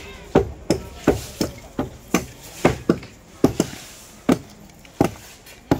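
Repeated sharp knocks from hand construction work on a rooftop being readied for a concrete slab, about a dozen blows at an uneven pace. They come roughly two a second at first and spread out further apart toward the end.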